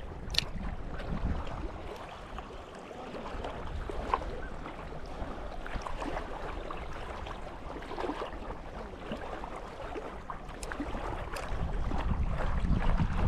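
Wind buffeting the microphone over lapping water, with scattered small clicks and knocks; the wind rumble grows louder near the end.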